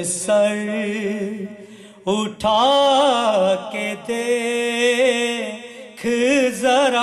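A man singing an unaccompanied devotional recitation into a microphone, in long held phrases with a wavering, ornamented pitch and short breaks between phrases.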